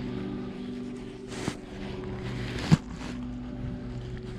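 Soft background music of held chords, with two sharp knocks, one about a second and a half in and a louder one near three seconds in.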